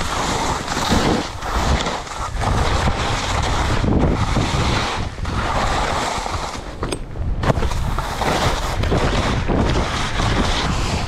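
Skis hissing and scraping over soft spring snow in repeated surges as the skier turns, with wind rushing over the microphone. The scraping drops away for a moment about seven seconds in.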